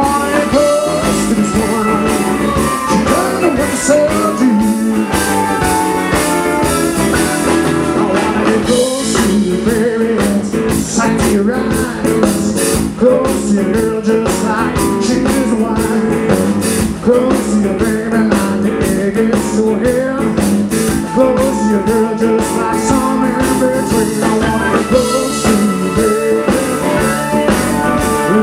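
Live roots rock-and-roll band playing: electric guitars over bass and drums.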